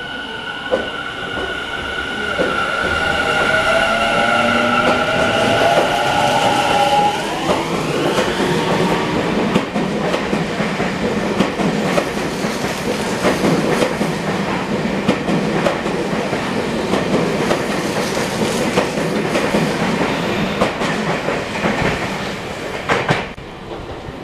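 Tobu 50000 series electric train pulling away from the platform. Its inverter and traction motors whine in steadily rising tones, with a sharp upward glide about seven seconds in. The cars then rumble past with the wheels clicking over rail joints, and the sound fades near the end.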